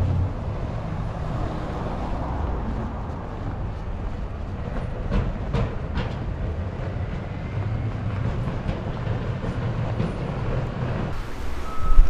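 Storm wind rumbling on the microphone while a car drives past on a snow-covered street, with a few sharp clicks about five to six seconds in.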